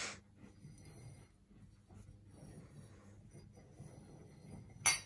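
Faint rubbing and scraping of small plastic cups being slid around on a rug, with a brief sharp hiss near the end.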